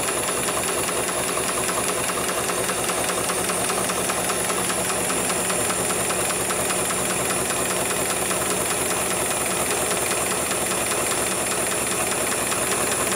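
HIGHTEX 7273 CNC automatic industrial sewing machine stitching a sling strap: a rapid, even rhythm of needle strokes with a steady high whine over it.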